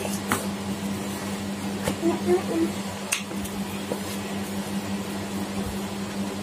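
Steady low electrical hum in a small room, with a few faint clicks and taps as plastic sand molds are handled, and a brief soft murmur of a child's voice partway through.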